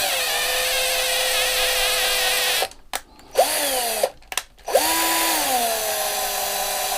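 Small electric drill running in short bursts while boring into a toy truck's body: a motor whine that stops a little under three seconds in, gives one brief burst, then starts again and keeps running, its pitch dropping each time the bit bites.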